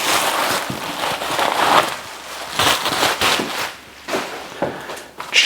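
Packaging being pulled off and crumpled, a loud crackling rustle that swells and fades several times.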